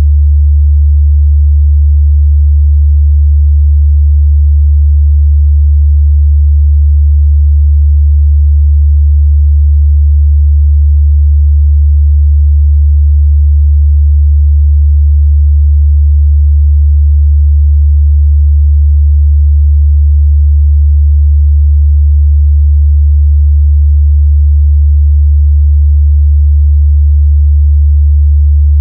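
A steady, loud 73 Hz sine tone, a pure low hum held at one pitch and level, used as a mid-bass test signal for speakers and headphones.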